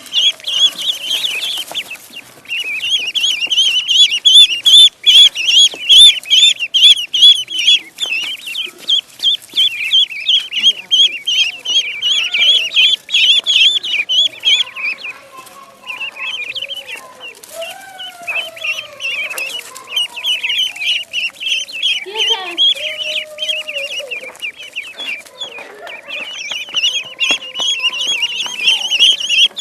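Ducklings peeping continuously: many rapid, high-pitched chirps overlapping, with a few lower, gliding calls mixed in through the middle.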